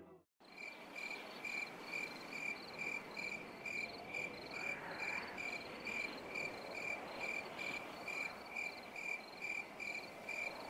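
A cricket chirping steadily at about two chirps a second, over a faint background hiss.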